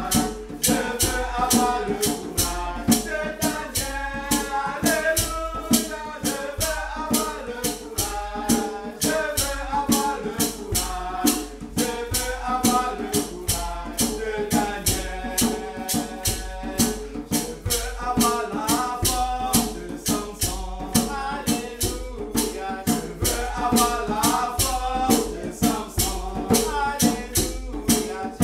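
A woman's voice singing a worship song over a shaker rattled in a steady beat, about three shakes a second.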